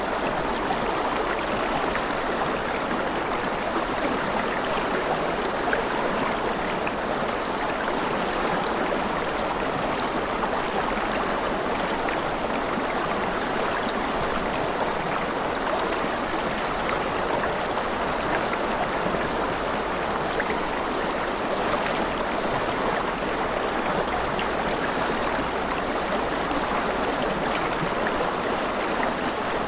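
A river rushing and babbling over rocks: a steady, even water noise with no pauses.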